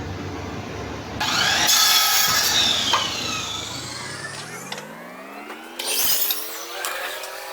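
Power mitre saw running and cutting. Its motor whine drops in pitch as the blade bogs down in the cut, with a loud stretch of cutting noise about a second in, then climbs back up as the blade frees, with another short bite of cutting near the end.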